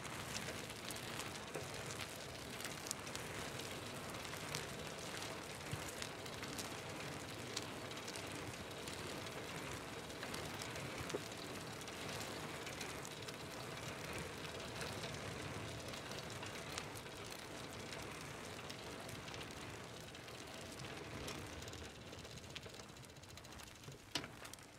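Bicycle rolling on asphalt: steady tyre noise on the road surface, dotted with small clicks and rattles, easing off slightly near the end.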